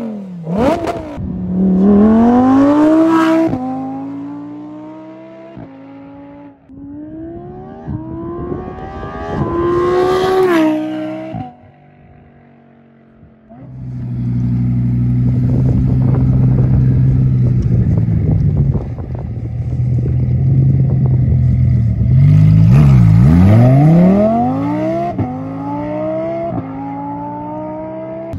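Lamborghini Huracán EVO's V10 engine through a Tubi Style exhaust: sharp rev blips, then hard acceleration with the pitch climbing and dropping at each upshift. After a quieter moment the engine runs loud and steady, then pulls away again through the gears.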